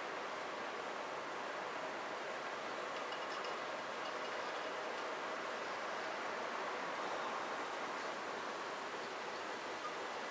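Dutch level crossing warning bells ringing continuously in a rapid, high-pitched, even rhythm while the crossing is closed with the barriers down.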